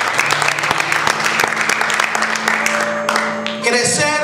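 Congregation applauding, with low held instrument notes underneath. About three and a half seconds in, the clapping dies away and a pitched voice over music takes over.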